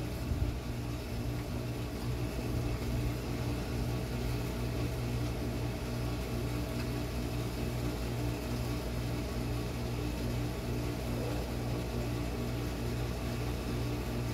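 Swimming pool pump motor running with a steady electric hum.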